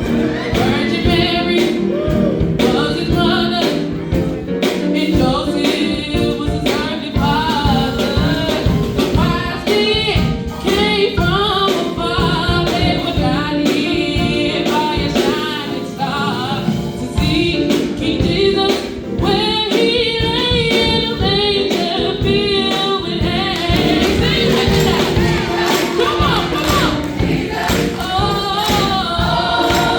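A choir singing a gospel-style song to band accompaniment, with a steady percussive beat.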